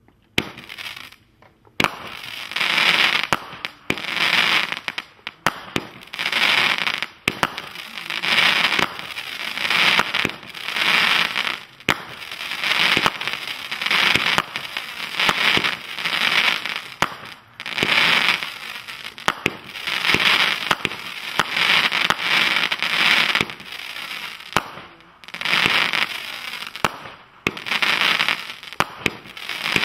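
Aerial fireworks going off shot after shot, starting about two seconds in. Each break is followed by a dense burst of crackling stars, a new swell of crackle roughly every second.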